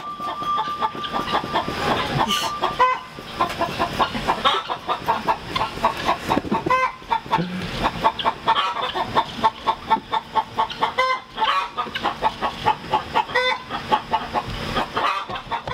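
Several hens cackling in quick repeated calls, overlapping one another: the egg song hens make after laying.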